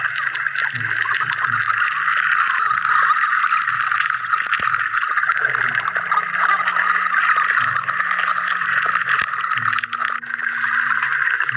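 Underwater sound picked up by a submerged camera: a steady hiss with many scattered clicks and crackles, over a low hum that shifts pitch in steps.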